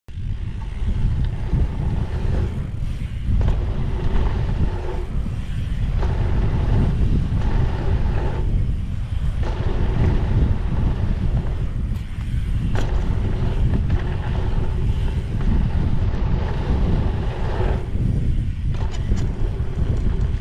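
Wind rushing over a helmet-mounted camera's microphone, with the tyres of a hardtail mountain bike rolling over a dirt trail during a descent. The rush eases briefly every few seconds.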